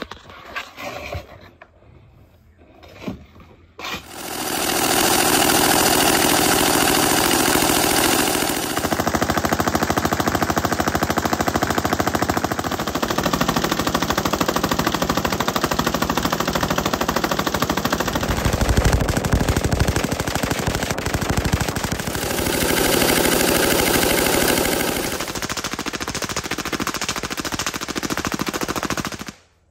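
M249 SAW light machine gun (5.56 mm) firing long, sustained automatic bursts, a dense rapid stream of shots. The first few seconds are quieter with only a few faint cracks, and the fire starts in earnest about four seconds in, then breaks off just before the end.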